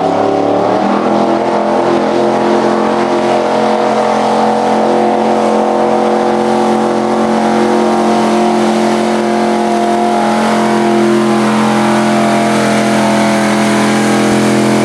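Highly modified Ford pickup's engine revving up in the first second, then held at high, steady revs under heavy load as the truck drags a weight-transfer sled in a truck pull.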